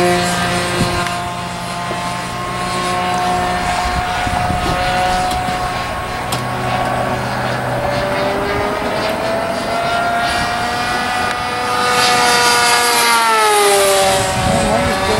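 Engine of a 60-size Bigstick radio-controlled model airplane running in flight: a steady engine note that wavers a little, then grows louder and drops in pitch in a long glide as the plane passes, near the end.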